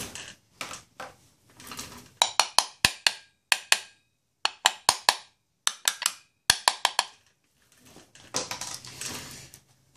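Sharp metallic clicks and clinks in quick twos and threes: a hand tool and screws knocking against the aluminium extension housing on a two-stroke bicycle engine as the housing is fitted, with duller scraping about a second in and again near the end.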